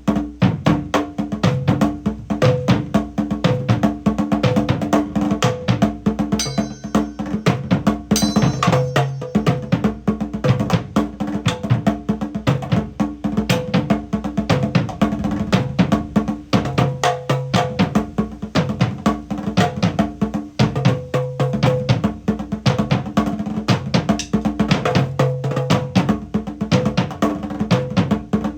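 Tom drum played in a steady, rapid groove, tuned to a low, deep pitch.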